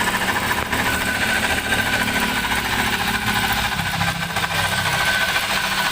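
Toyota Rush engine running with a loud, steady whine and rumble from worn bearings inside the alternator.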